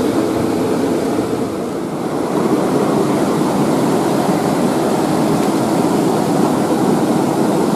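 Fast-flowing river rushing over rocks: a steady, even rush of churning water.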